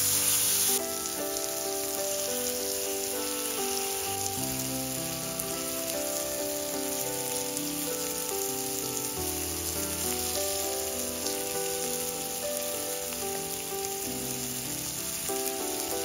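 Tomato slices sizzling steadily as they fry in oil in a pan, with a louder hiss that drops about a second in. Background music plays throughout.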